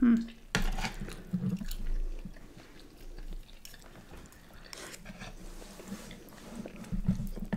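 Close-miked chewing and slurping of ramen noodles, with small wet mouth clicks. A brief hum of voice comes right at the start.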